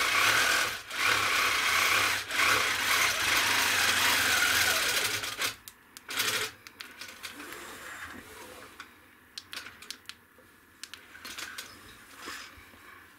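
Handi Quilter longarm quilting machine stitching steadily with a low hum, stopping about five and a half seconds in, with one short burst of running after. Then faint clicks and rustles as the quilt is handled.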